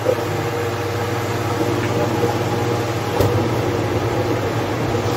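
Room air cooler's fan running at speed: a steady motor hum with a rush of blown air. The cooler is running dry, with no water in its tank yet. A brief light knock comes about three seconds in.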